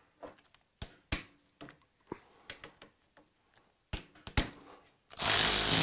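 Metal tools and fasteners clinking and knocking as they are picked up and set against the motorcycle's footrest bracket. Near the end a cordless electric ratchet starts running, spinning out a bracket bolt.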